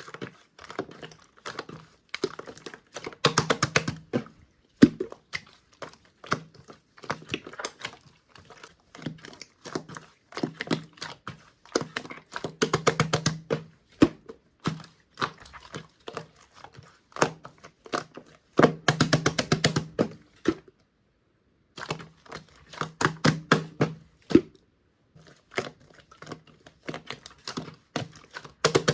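Clear slime mixed with clay being squished and pressed by hand: dense runs of sticky clicks and small pops, in louder bursts every few seconds with short pauses between.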